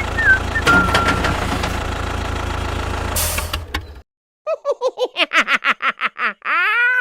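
A steady low engine rumble with a few clicks and a short hiss near its end, which stops suddenly; after a brief gap comes a quick run of pitched cartoon-style notes, about four a second, ending in a swooping glide.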